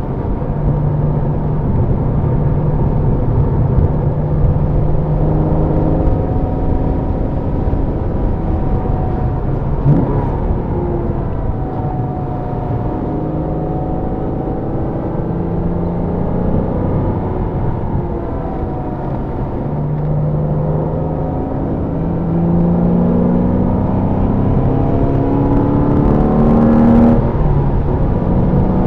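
Porsche engine heard from inside the cabin, pulling through the gears: its pitch climbs, drops at each shift and climbs again several times, over a steady hiss of wet tyres and wind. A sharp click sounds about ten seconds in and another near the end.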